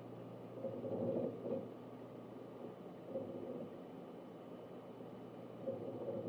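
Synology DS1821+ eight-bay NAS running: a steady hum from its fans, with irregular bursts of hard-drive seek chatter about a second in, briefly around three seconds, and again near the end.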